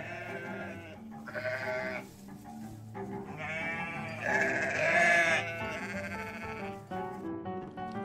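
Farm animal calls over background music: a short call about a second in, then a longer, louder call from about three to five seconds in.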